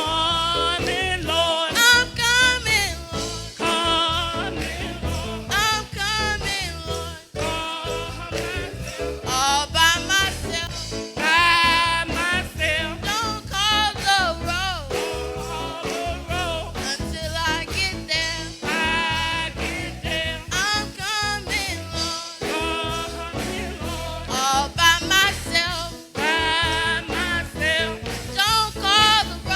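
Gospel singing with strong vibrato over instrumental backing with a steady beat.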